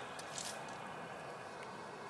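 Faint steady background hiss with a few light ticks.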